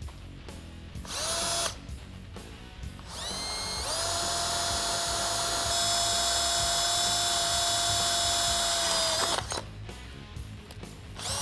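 Power drill with a 17/64-inch bit drilling a hole into a metal spring perch. It gives a short spin-up about a second in. From about three seconds in the motor winds up and runs steadily at one pitch under load for around six seconds, then stops.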